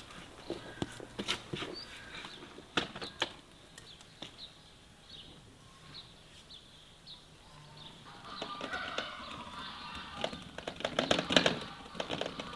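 Garden work outdoors: scattered knocks and scrapes of footsteps and tools, with short, faint bird chirps in between. A denser clatter builds over the last four seconds.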